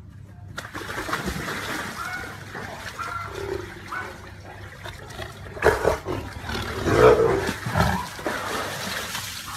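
Two tigers scuffling in a pool of water, with splashing and snarls. The loudest splashes and cries come about six and seven seconds in.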